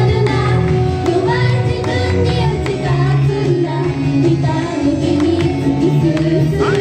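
Live idol pop song: young female singers sing into microphones over a recorded pop backing track played through the PA.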